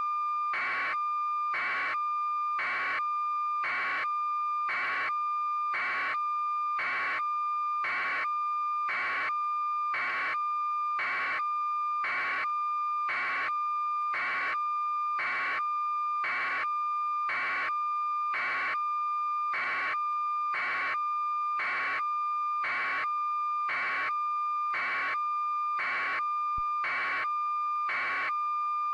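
A steady electronic tone with regular pulses sounding about one and a half times a second, unchanging throughout.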